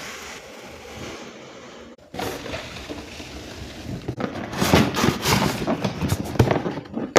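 Rustling, crinkling and light knocking of packaging being handled as a car vacuum cleaner is unboxed. The sound is faint at first, then busier with many short crackles from about two seconds in, and it cuts off abruptly at the end.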